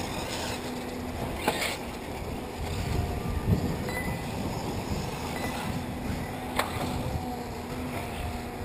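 Steady low outdoor rumble at an RC dirt track, with faint thin whines and two sharp clicks, about a second and a half in and again near six and a half seconds.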